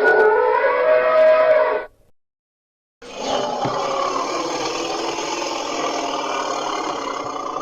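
Woolly mammoth sound-effect calls: a pitched call of about two seconds that cuts off abruptly, then after a second of silence a long, rough call that keeps going.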